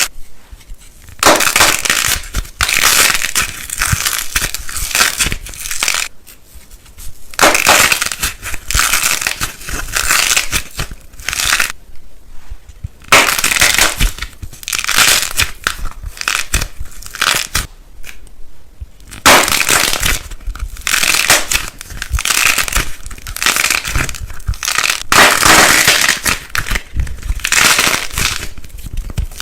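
Crisp crunching and crushing of something brittle, in runs of a few seconds broken by brief pauses.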